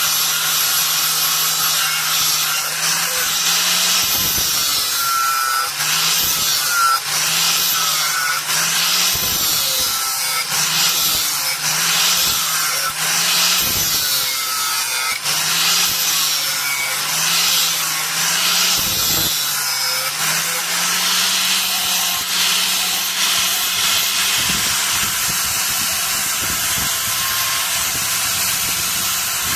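Rhythmic back-and-forth scraping of a hand tool working metal, about one stroke a second, over a steady low hum that wavers with each stroke.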